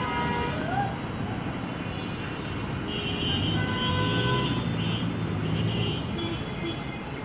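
Dense, jammed road traffic: truck and auto-rickshaw engines running together in a steady din. Their low engine note grows about three seconds in, joined by high steady tones like horns for a couple of seconds.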